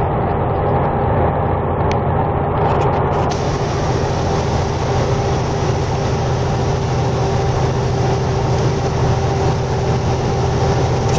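Semi-truck's diesel engine pulling steadily up a long grade, heard from inside the cab as an even, continuous drone.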